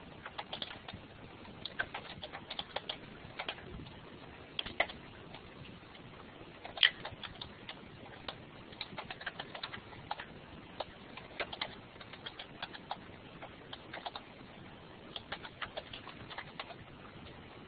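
Typing on a computer keyboard: faint, irregular keystroke clicks in quick runs with short pauses between, one key struck harder about seven seconds in.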